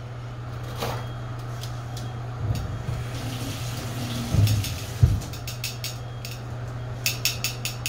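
Kitchen handling sounds over a steady low hum: a short rush of water-like hiss, two knocks about half way through, then a quick run of metal clicks near the end, like kitchen tongs being snapped together.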